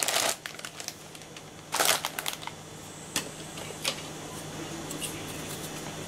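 Thin plastic packaging crinkling in two short bursts, at the start and about two seconds in, as a plastic straw is drawn out and handled, then a few light plastic clicks.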